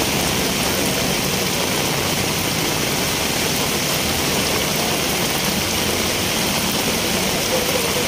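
Heavy rain pouring down with rushing floodwater, a loud, steady, unbroken hiss.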